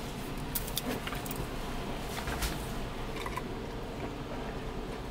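Soft rustling and a few light clicks of things being handled at a car door, over a steady low hum.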